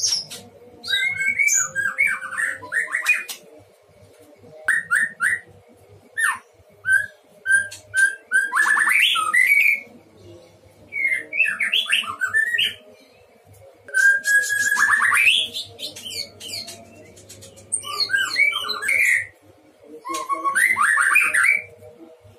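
White-rumped shama singing in a string of loud phrases separated by short pauses. The phrases mix clear whistled notes with fast chattering runs. A faint steady hum sits underneath.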